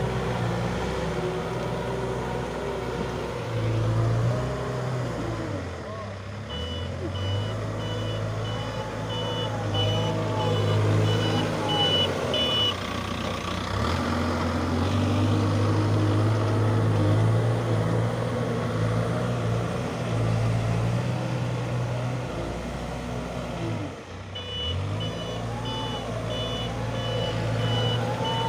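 CASE backhoe loader's diesel engine running and revving as it manoeuvres, dropping in pitch for a moment twice as it changes direction. Its reversing alarm beeps steadily for about six seconds a quarter of the way in, and starts again near the end.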